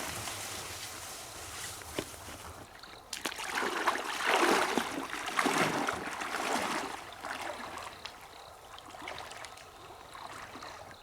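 Water splashing and trickling as a net fish trap is pulled up out of a river, in several swells that are loudest in the middle and fade toward the end.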